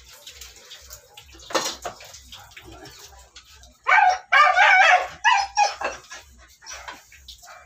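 A dog yelping and whining: a short sharp yelp about a second and a half in, then a louder wavering whine lasting about a second from about four seconds in, with a few shorter ones after.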